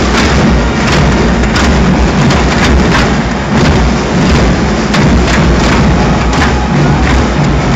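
Loud, distorted crowd noise from a packed arena, with irregular sharp beats or claps cutting through it.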